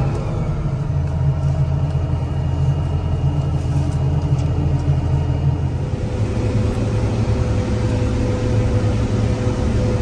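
John Deere 9760 combine running steadily, heard from inside the cab. About six seconds in, the hum changes and a steady higher whine comes in as the combine moves into standing corn.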